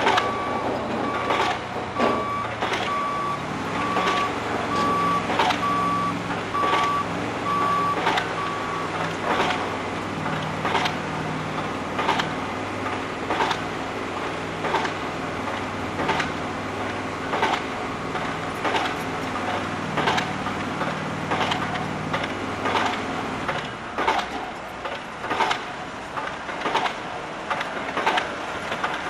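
Construction site sound: a heavy vehicle's reversing alarm beeps about twice a second for the first nine seconds over its engine running, the engine note shifting and dying away a little after twenty seconds. Sharp knocks, like hammer strikes, repeat about once a second throughout.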